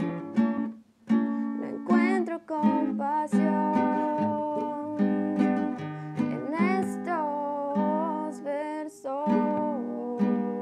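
A young woman singing a slow ballad to her own acoustic guitar accompaniment. The guitar chords run throughout, with a brief gap about a second in; her voice comes in at about two seconds and carries on in long, wavering phrases.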